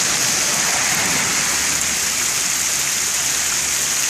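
Heavy rain pouring down steadily, with runoff water streaming along the street and flooding onto a driveway.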